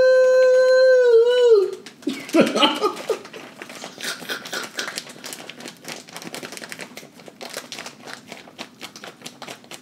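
A man holds a sung note for about the first second and a half. Then comes a steady run of small crinkles and crackles as a plastic bag of brown sugar is shaken and squeezed to pour sugar into a hot pot.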